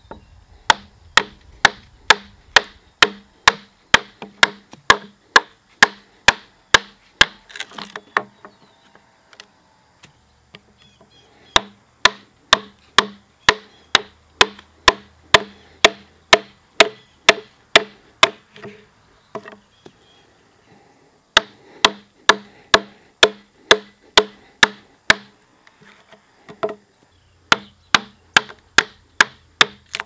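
Wooden mallet driving a framing chisel into a timber beam, chopping out waste between saw kerfs on a timber-frame joint. Sharp, even strikes about two and a half a second, in four runs broken by pauses of two to three seconds.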